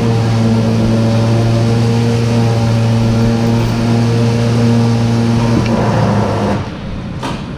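A motor runs steadily at a constant pitch, then shuts off about six and a half seconds in, followed by a short click.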